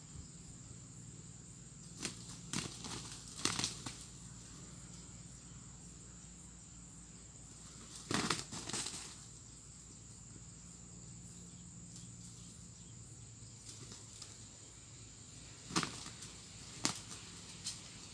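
Roosters' wings flapping in short flurries, a few about two to four seconds in, a longer one around eight seconds, and more near the end, over a steady high-pitched insect drone.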